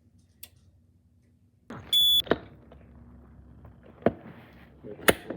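Fire alarm panel giving a short, loud, high electronic beep about two seconds in, followed by three sharp mechanical clicks and clunks from a Honeywell/Wheelock T-bar pull station being worked during a system test.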